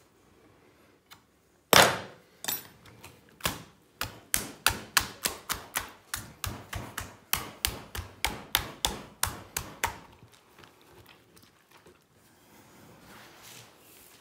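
One loud sharp knock, then a steady run of sharp knocks at about three a second that stops about ten seconds in.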